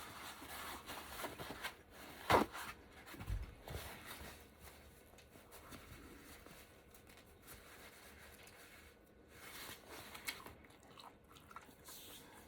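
Close-miked chewing of ramen hotpot, with scattered short wet mouth sounds and a sharp click a little over two seconds in.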